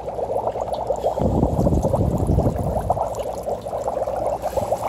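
Dry ice bubbling steadily in water in a stainless steel bowl, a dense fizzing churn of bubbles. A low rumble joins about a second in and eases off near the end.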